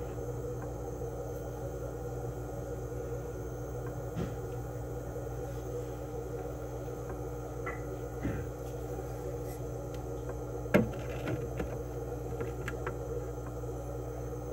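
Aquarium air pump running with a steady hum, with a few light clicks and one sharper tap about eleven seconds in.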